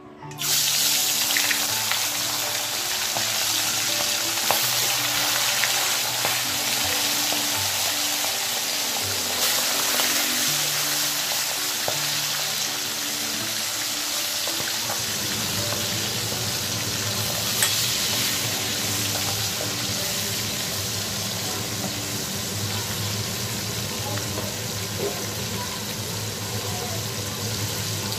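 Whole marinated tilapia deep-frying in hot oil in a steel kadhai: loud, steady sizzling that starts abruptly as the first fish goes into the oil.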